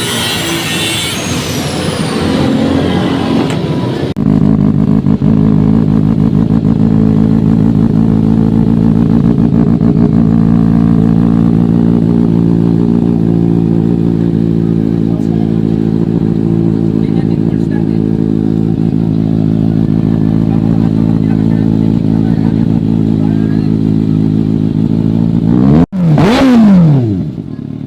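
Kawasaki Ninja ZX-6R inline-four idling steadily through its aftermarket exhaust with a re-made elbow pipe, then revved once, rising and falling, near the end. Mixed workshop noise comes before the engine starts being heard, about four seconds in.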